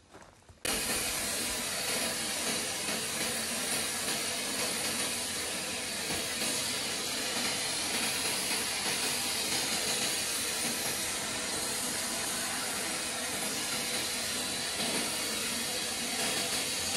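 Bosch paint sprayer running as paint is sprayed onto a wall: a steady, even hiss of air and spray that starts abruptly about a second in and holds level.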